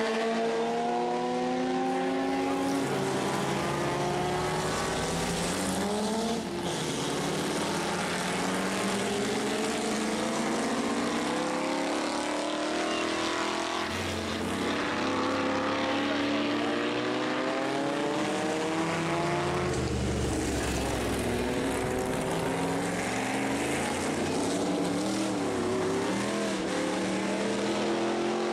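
Several classic racing cars' engines running hard through a slow corner, overlapping one another. Their notes rise as they accelerate and change up, and fall as they brake and change down.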